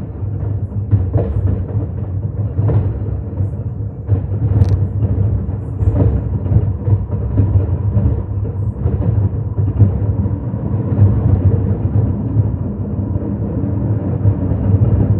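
Fireworks exploding in a rapid, continuous run of booms and bangs over a steady low rumble.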